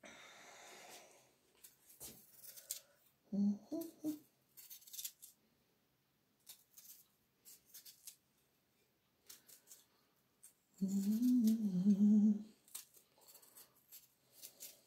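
A woman humming a wordless tune, briefly a few seconds in and again for about a second and a half past the middle, which is the loudest sound. Between the hums come faint clicks of a kitchen knife cutting a red bell pepper.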